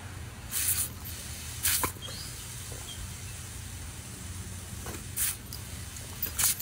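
Water spraying from a garden-hose spray nozzle, with several short, sharp hisses spread through the few seconds.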